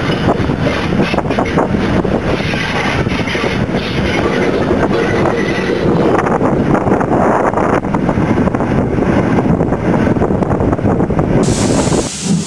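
Steam locomotive running along the line, heard from beside its cab: the loud, steady running noise of the engine and its wheels on the rails. The sound changes about halfway through, and a hiss comes in near the end.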